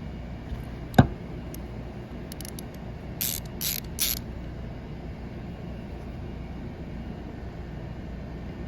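Hand ratchet clicking in three short bursts a little past three seconds in, after a single sharp clack about a second in, over a steady low hum.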